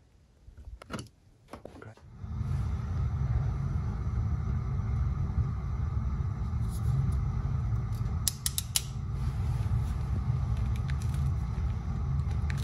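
A steady low mechanical rumble starts about two seconds in and holds. Over it, a quick run of sharp clicks comes a little past halfway, from a ratcheting wire crimping tool closing on a terminal.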